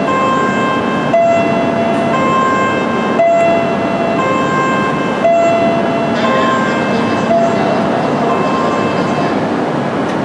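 Shinkansen platform safety fence's warning chime: two tones, low then high, each held about a second, alternating over and over and fading near the end, over a steady station and train hum.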